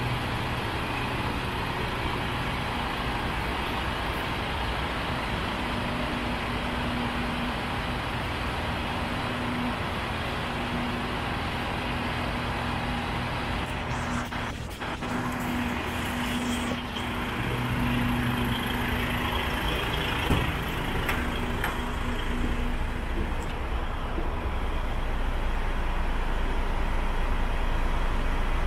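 Diesel engine of a DAF CF85 tractor unit, its Paccar MX straight-six, idling steadily with a low, even hum.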